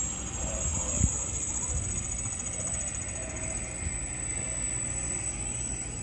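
Outdoor background noise: a steady low rumble under a constant high-pitched whine, with a single knock about a second in.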